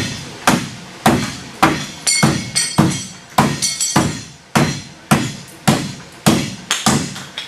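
Large knife chopping into stacked pine boards: about a dozen hard strokes, a little under two a second, some leaving a brief high ring.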